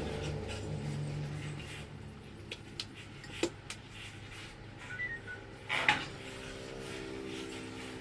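A few sharp metallic clinks and knocks, the loudest about six seconds in, over a low hum that fades over the first two seconds.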